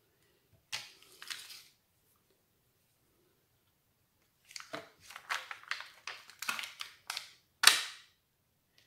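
Crackling and rustling of a plastic sheet of rhinestones handled by hand as stones are picked off it: a couple of short crackles early, then a run of quick crackles in the second half, the loudest near the end.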